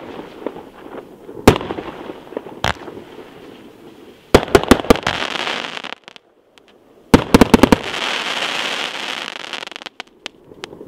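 A 39-shot fireworks cake firing: a couple of single bangs, then two quick volleys of several bangs each, about four and seven seconds in. Each volley is followed by a few seconds of crackling as the glittering stars burn out.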